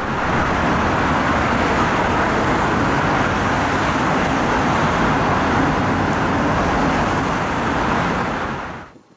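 Steady, extremely loud traffic noise from a multi-lane motorway of cars and lorries, an even wash of tyre and engine sound that drops away suddenly near the end.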